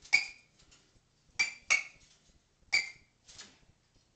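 A parrot giving a string of five short, sharp, clinking calls, each ending in a brief high ring.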